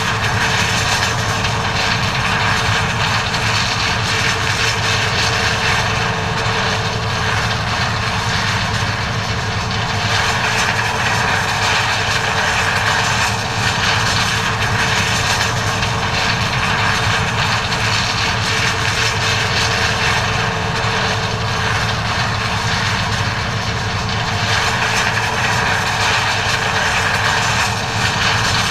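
John Deere 9400 combine running steadily while harvesting corn: a constant engine hum with a steady whine and the rushing noise of the machinery, unchanging throughout.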